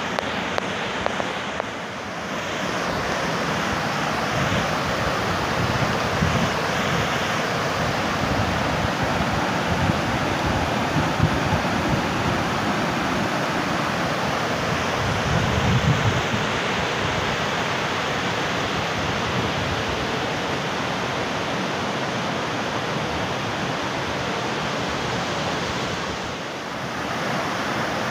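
Steady rushing of river water spilling over a small weir into the pool below, with some low buffeting on the microphone around the middle.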